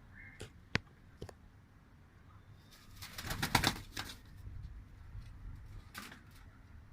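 Domestic pigeons' wings flapping. A loud burst of rapid wing claps comes about three seconds in, with a shorter flutter near the end and a few single sharp clicks in the first second and a half.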